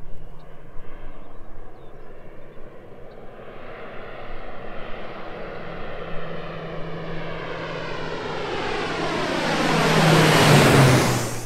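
Agricultural airplane flying in low over a flooded rice field: its engine and propeller drone grows steadily louder as it approaches, is loudest as it passes overhead near the end, and drops in pitch as it goes by.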